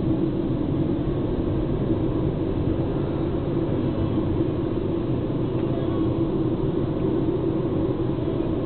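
Car engine and road noise heard from inside the cabin while driving: a steady low hum that does not change.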